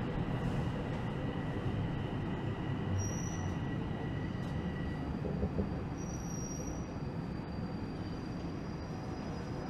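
TTC Line 1 subway train rolling slowly along a station platform, heard from inside the car: a steady low rumble that eases slightly, with short high squeals about three and six seconds in and a thin high whine from about halfway.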